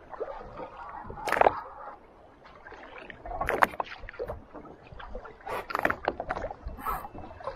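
Water splashing and lapping beside a boat as a hooked shark thrashes at the surface, with sharp splashes about one and a half and three and a half seconds in.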